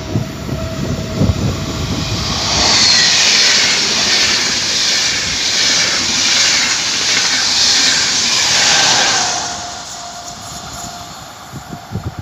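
Deutsche Bahn Intercity train passing close by: a loud rush of steel wheels on the rails that builds about two seconds in, holds steady and fades after about nine seconds. Wind rumbles on the microphone at the start and end.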